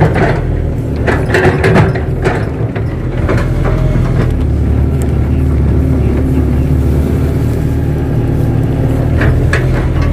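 Kato crawler excavator's diesel engine running steadily, its note growing stronger and steadier about four seconds in as the machine works. A few sharp knocks sound in the first three seconds and again near the end.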